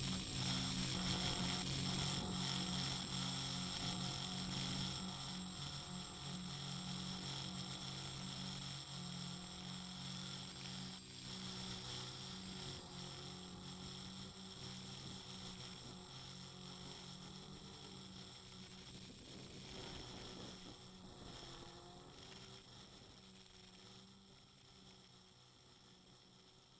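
Quadcopter's motors and propellers humming steadily with a high whine, heard from the drone's onboard camera. The sound fades out gradually.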